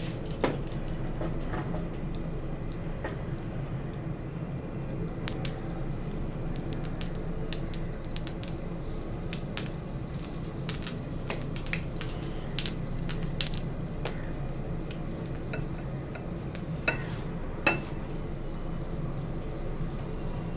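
Fenugreek seeds sizzling in hot mustard oil in a small frying pan, with sharp pops and clicks scattered throughout, over a steady low hum. The seeds are being fried until they turn dark red, the tempering step for a radish pickle.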